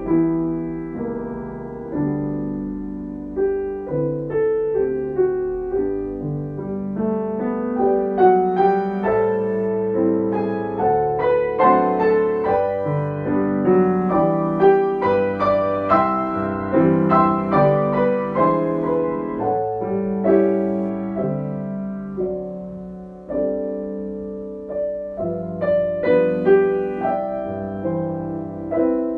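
Solo piano music: a slow melody over held chords, notes struck and left to ring.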